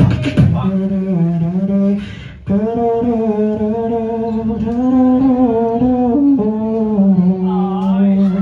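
Beatboxer humming long, held notes into a microphone over the PA, after a last few percussive sounds at the start. The hum breaks off briefly about two seconds in, then resumes and holds, stepping a little in pitch.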